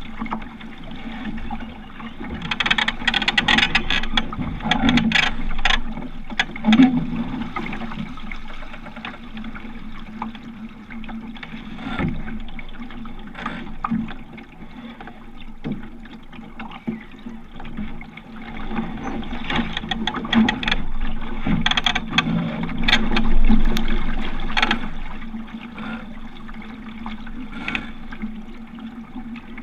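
Water lapping and slapping irregularly against the bow of a Rooster 8.1 sailing dinghy under way, with louder stretches of splashing a few seconds in and again in the second half.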